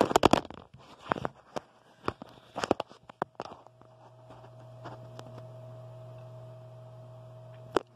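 Handling noise from a phone or camera being grabbed and repositioned on a wooden desk: a run of sharp knocks and bumps. About three and a half seconds in these give way to a steady low hum with a faint higher tone, which cuts off with a click near the end.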